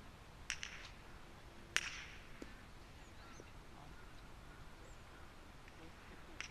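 Park golf clubs striking the ball: a sharp click about half a second in, a louder crack a little over a second later, then a faint tap.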